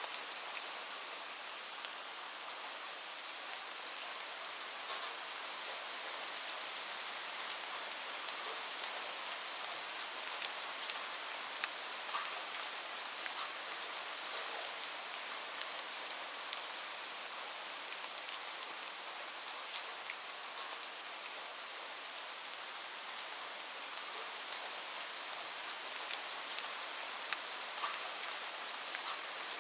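Light rain falling steadily, a soft even hiss with many separate drops ticking sharply on a surface.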